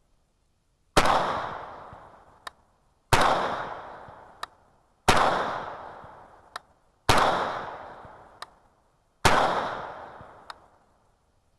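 Five single shots from an AMD-63 AK-pattern rifle in 7.62×39, fired slowly about two seconds apart. Each sharp report has an echo trailing off over a second or more, followed by a light tick.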